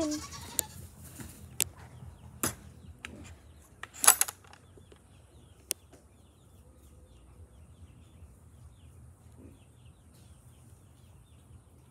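A few sharp knocks and clicks, loudest about four seconds in, from the phone being handled, with small birds chirping faintly in short high notes through the middle.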